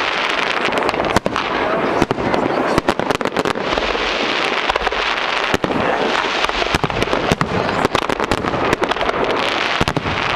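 Aerial fireworks shells bursting in a dense, continuous barrage, with many sharp bangs overlapping one another and no pause.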